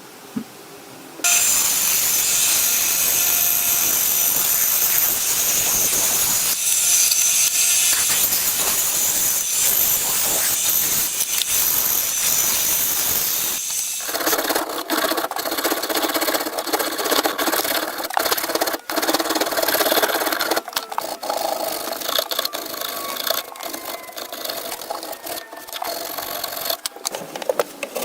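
Workshop tools working on the axe: about a second in, a steady high-pitched power-tool sanding or grinding sound starts. About halfway through it gives way to rougher, lower scraping or rasping broken by many short clicks.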